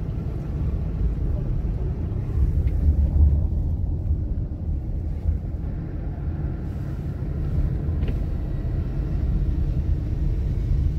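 Steady low rumble of a car's engine and tyres on a snowy road, heard from inside the moving car's cabin.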